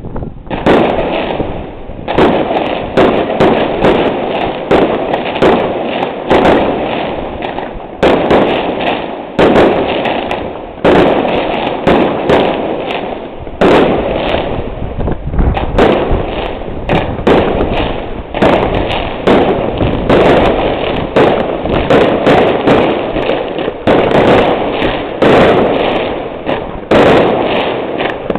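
Aerial fireworks display: a dense, continuous barrage of shell bursts and crackle, several bangs a second, starting suddenly just after the beginning.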